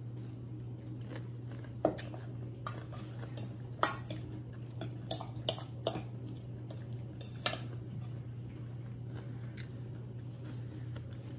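A utensil clinking and scraping against a bowl while the salad is mixed and scooped: a quick irregular run of clinks, loudest about four seconds in, thinning out after the middle. A steady low hum runs underneath.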